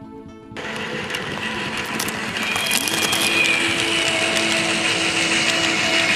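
HO-scale model steam locomotive and coaches running along the track close by: the running gear and wheels on the rails make a steady mechanical whir with a faint whine, growing louder as the train comes nearer. A brief bit of background music cuts off about half a second in.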